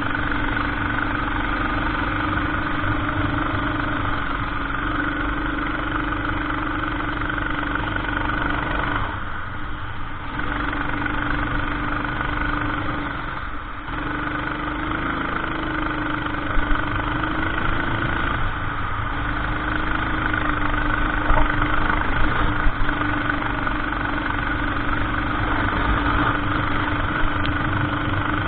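Racing kart engine running under load at race pace, its note wavering slightly, easing off briefly twice, about nine and thirteen seconds in.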